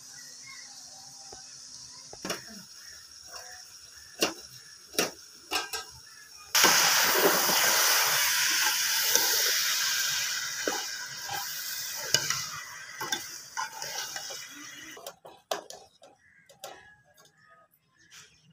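Chopped spinach and potato sizzling in an aluminium pot over a gas burner while a metal spoon stirs: a loud hiss starts suddenly about six seconds in and slowly dies away over the next several seconds. A few knocks and clinks of utensils on the pot come before it, and more after it.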